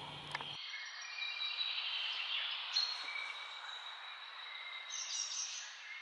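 Small birds chirping and singing over a faint hiss; a low background rumble cuts out about half a second in.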